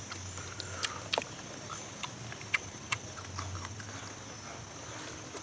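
Irregular sharp clicks and cracks, as of crab shell being broken and eaten by hand, over a steady high-pitched hiss in the background.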